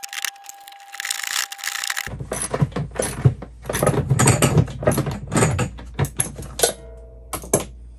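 Metal clinks, taps and rattling of a bolt and hand tools being worked at a linear actuator's mounting block: a quick, irregular clatter from about two seconds in. Before it comes a steady high tone with hiss.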